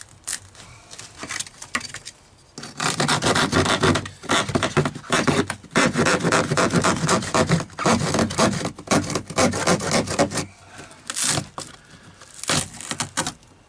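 A saw cutting through the fiberglass layer of a boat floor, laid over wood and foam, in rapid repeated strokes. The cutting starts about two and a half seconds in, runs steadily for about eight seconds, and ends with a few short strokes near the end.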